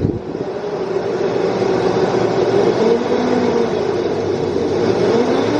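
Car engine being revved with the throttle, its pitch rising and falling a few times, on a freshly fitted fan belt; the owner finds the engine running rough.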